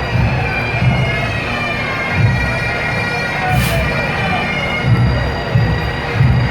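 A massed pipe band of many bagpipes playing together over their steady drones, with drums beating underneath in low thuds about once a second.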